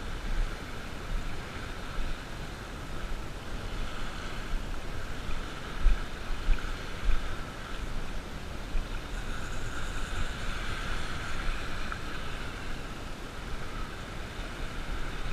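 Wind buffeting the microphone over small waves washing in shallow sea water, with a few gusts thumping on the microphone.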